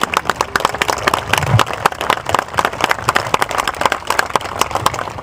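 Crowd applauding: many hands clapping in a dense, uneven clatter that thins out near the end.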